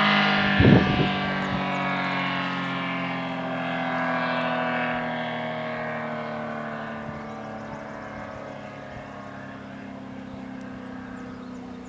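ACA P-10 warning siren winding down at the end of its test: a chord of steady tones slowly falling in pitch and fading. A short thump about a second in.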